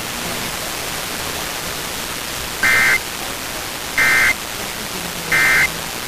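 FM radio static hissing under a weak E-skip signal, then three short two-tone data bursts about 1.3 s apart: the EAS end-of-message (EOM) code that closes the alert.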